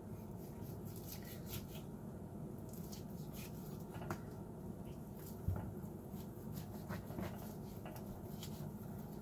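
Knife slicing raw ribeye on a plastic cutting board: a run of short, soft scraping strokes of the blade through the meat. There is a single knock about five and a half seconds in.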